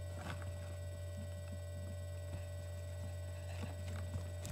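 Steady low electrical hum of the recording, mains hum, with a few faint soft clicks.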